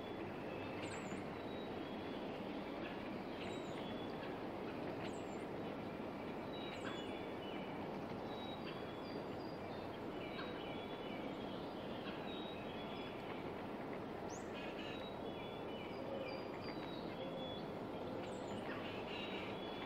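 Small songbirds calling and singing over a steady, even rushing background, with a very high, thin note repeating every couple of seconds among the lower chirps.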